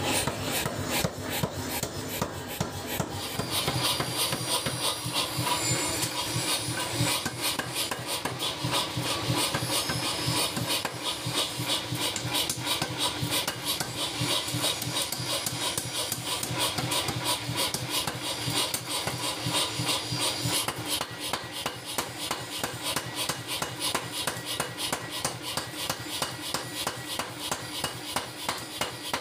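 Mechanical power hammer pounding a red-hot metal bar on its anvil in rapid, even blows, several a second, hot-forging it into a chopper blade.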